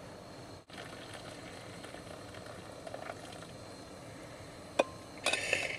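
A metal utensil scraping inside a cooking pot, with one sharp clink against the pot near the end, then a short scrape.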